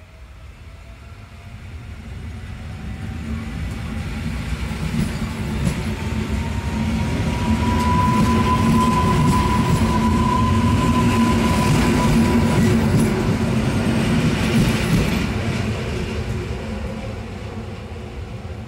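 EN57ALd electric multiple unit pulling away and passing close by. A whine rises in pitch as it gathers speed, over a low rumble of wheels on rail with a few clicks. The sound builds to a peak about halfway through as it passes, then fades as it recedes.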